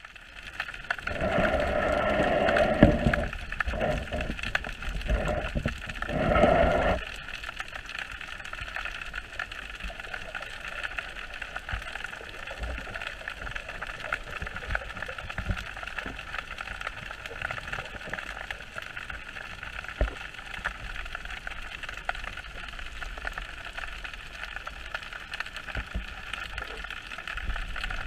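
Muffled underwater sound picked up by a camera held below the surface: louder swishing of water for the first seven seconds or so, then a steady even hiss.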